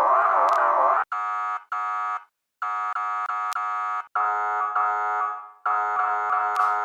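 Edited variations of a police truck siren sound effect: a warbling siren tone for about a second, then two short flat blasts, then three longer steady blasts separated by brief gaps, each cut off abruptly.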